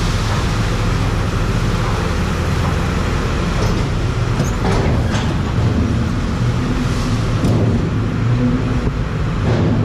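New Holland TM150 tractor engine running steadily under load, with a constant rushing noise over its hum.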